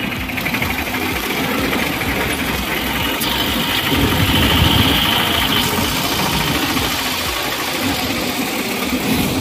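Vehicle engine idling and running slowly in a road traffic jam, with the noise of surrounding traffic. A brighter hiss rises about three seconds in and lasts a couple of seconds.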